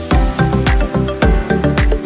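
Upbeat music with a steady beat: a deep kick drum about twice a second under sustained melodic notes.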